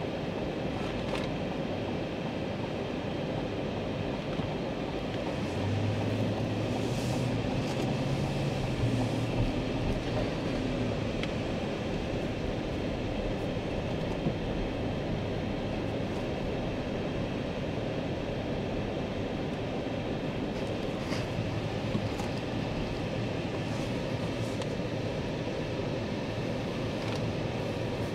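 Cabin noise of a 2021 Chevrolet Suburban Z71 being driven: steady road and engine noise, with a low engine hum rising for a few seconds about six seconds in.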